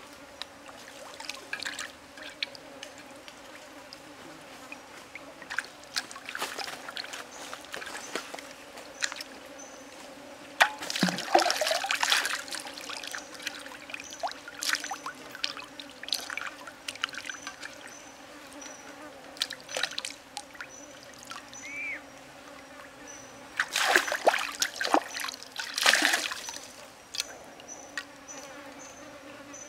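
Water splashing and sloshing in a small square frying pan as raw pig liver is rinsed by hand in stream water, in irregular bursts, loudest about eleven seconds in and again between about twenty-four and twenty-six seconds.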